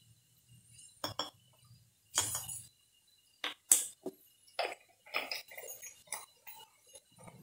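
Small objects handled on a hard tabletop: a string of light clicks, taps and brief rustles, with the sharpest click about three and a half seconds in. Near the end a plastic bottle cap is screwed on.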